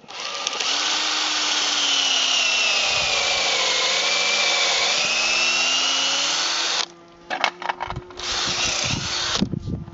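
Cordless drill with a 7/16-inch bit boring a sap taphole into a maple trunk; the motor runs steadily, its pitch sagging toward the middle and rising again. It stops about seven seconds in, followed by a few knocks and a second, shorter run of the drill near the end.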